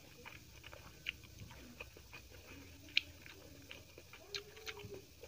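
Close-miked chewing and mouth sounds of a person eating rice and fried mutton: scattered wet clicks and smacks, the sharpest about three seconds in.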